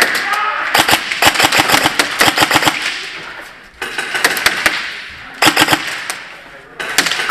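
Airsoft guns firing in rapid bursts of sharp clicking shots, the longest about two and a half seconds, followed by three shorter bursts.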